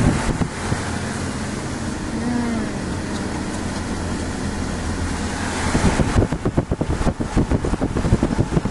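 A car driving, with a steady low engine and road drone heard from inside the vehicle. About six seconds in, gusty wind buffeting on the microphone takes over.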